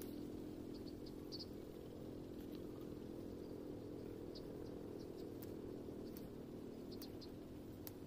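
Faint rustling and small clicks of leafy twigs being handled and set in place, over a steady low hum and scattered faint high ticks.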